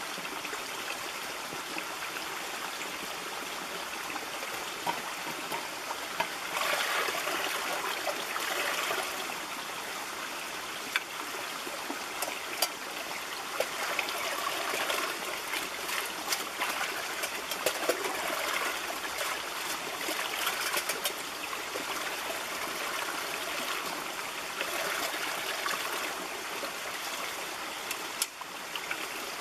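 A small stream running over rocks, with splashing that grows louder in stretches as a stainless-steel pot is held in a little cascade to fill it. A few short clicks sound through the water.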